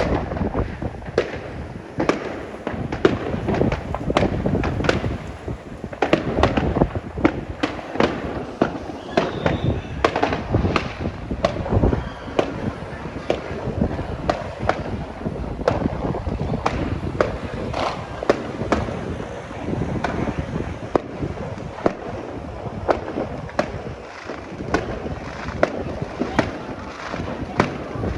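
Fireworks going off in quick succession: many sharp bangs, a few a second at irregular intervals, over a continuous low rumble.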